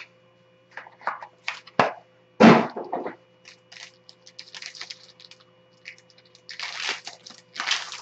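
A small cardboard trading card box being opened and a plastic-wrapped card pack handled and torn open: scattered clicks and crackles, a sharp knock about two and a half seconds in, and loud crinkling of the plastic wrapper near the end.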